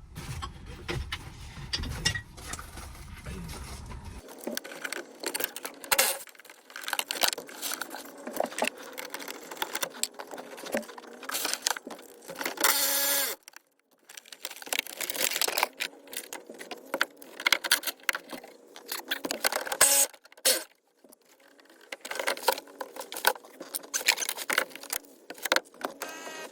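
Clicking and clattering of hand tools and metal parts being worked, in many short irregular knocks, with a brief denser rattling burst about halfway through.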